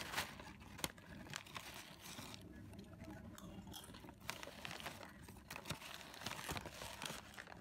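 A foil-lined plastic chip packet crinkling and crackling as hands fold and handle it, with the chips inside rustling; irregular sharp crackles throughout.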